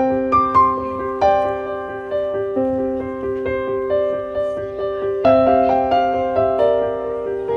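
Background music on a piano-like keyboard: a steady stream of notes in a repeating pattern over held lower tones.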